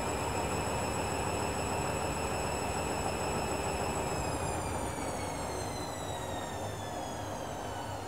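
Candy front-loading washing machine's drum motor spinning with a steady high whine, then winding down from about four seconds in, the whine falling in pitch as the spin slows.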